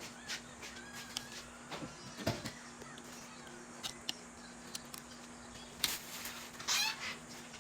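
Scattered small clicks and taps of eating, a spoon on a bowl and mouth noises, over a steady low hum, with a brief louder scraping sound near the end.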